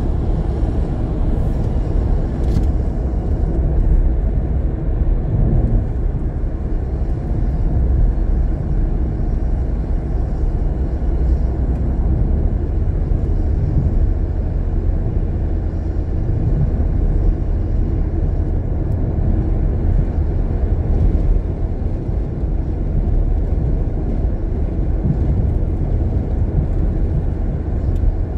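Steady low rumble of tyre and engine noise heard from inside a car's cabin while driving at road speed.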